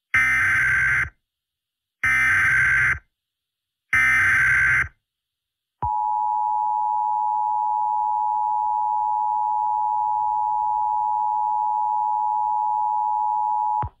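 Emergency Alert System broadcast tones: three one-second bursts of SAME header data about two seconds apart, then the EAS two-tone attention signal (853 and 960 Hz together), a steady dual tone held for about eight seconds that cuts off suddenly.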